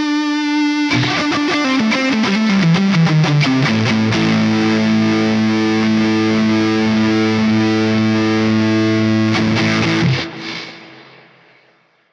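Distorted electric guitar played through a Mesa Boogie Mark IIC+ amp-model plugin: a quick run of notes falling in pitch, then a long held low note or chord that sustains and fades away about ten seconds in.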